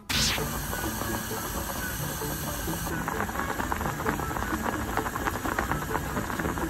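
Nurungji (scorched rice) boiling in water in a pot: a steady bubbling hiss with dense small pops of bursting bubbles, thickening about halfway through.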